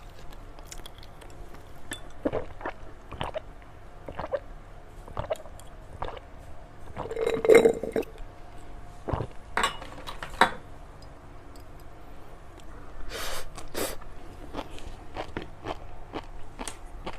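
Close-miked chewing and biting of sweets, with irregular wet clicks and crunches and a louder stretch about seven seconds in.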